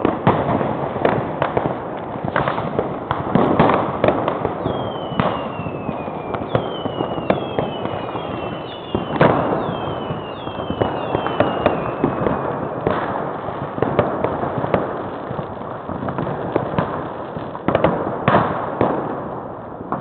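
Fireworks going off all around: a steady crackle broken by many sharp bangs, the loudest about nine seconds in and near the end. Through the middle comes a run of about eight whistles, each falling in pitch over a second or so.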